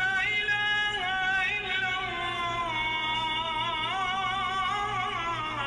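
A solo voice singing a slow, ornamented melody, holding long notes that waver and glide between pitches.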